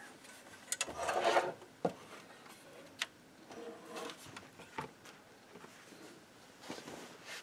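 Handling noise from an old reel-to-reel tape recorder's chassis being shifted about on a bench: a rubbing scrape about a second in, then a few sharp clicks and knocks.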